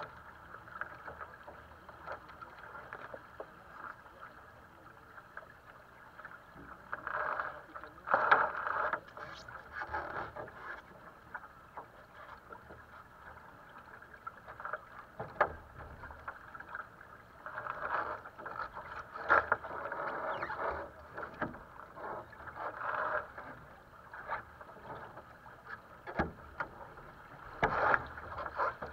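Water rushing and splashing along the hull of a small sailing dinghy under way, in uneven surges, with a few sharp knocks from the boat's fittings.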